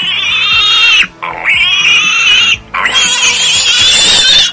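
Domestic pig squealing: three long, high-pitched squeals in a row, with short breaks between them, over quiet background music.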